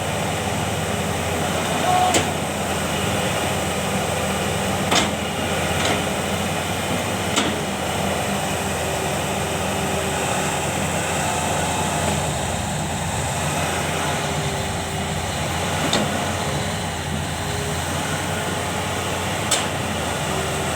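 Heavy earth-moving machinery's diesel engine running steadily, with a few sharp metal knocks scattered through.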